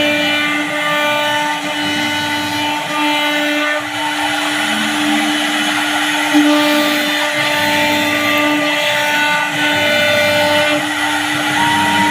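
CNC router carving a design into a WPC (wood-plastic composite) door panel. Its spindle gives a steady whine under cutting noise, with higher tones that come and go as the machine moves.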